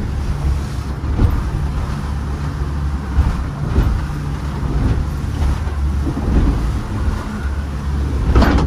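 Catamaran under way: its engine runs with a steady low hum, while wind blows across the microphone and water rushes along the hull. A few short thumps and splashes come from the waves.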